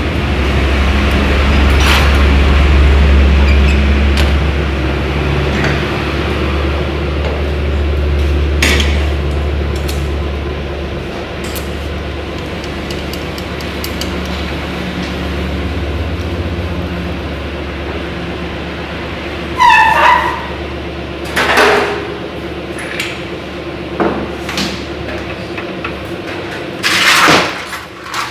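Suzuki Raider 150 engine running at a steady idle with occasional metallic clinks of tools. The engine hum stops near the end.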